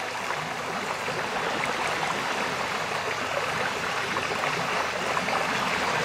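Small sea waves washing in and drawing back over a sandy beach: a steady hiss of surf that swells slightly near the end.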